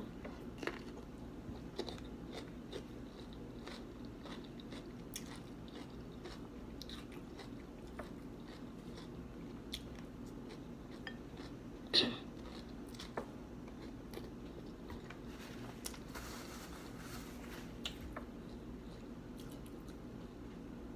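A person chewing and biting food close to the microphone, with many small mouth clicks and smacks and one louder, sharper sound about twelve seconds in. A steady low hum runs underneath.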